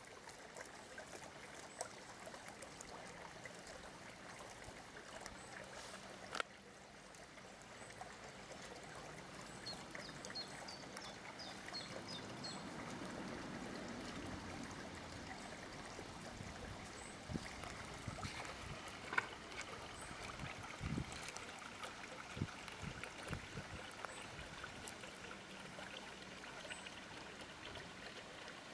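Faint garden ambience: a steady, even hiss, with a short run of high chirps about ten seconds in and a few small ticks later.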